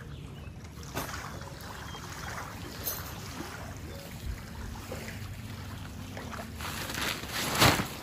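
Outdoor wind rumble on the microphone at the water's edge, with a few light clicks and knocks. Near the end comes a louder, brief rushing burst, the loudest sound here.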